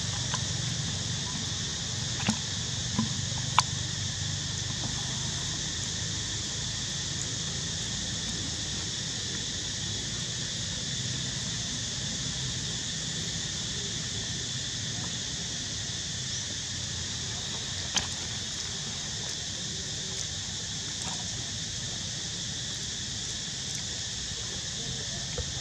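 Steady high-pitched drone of insects with a low hum underneath, broken by a few short sharp clicks.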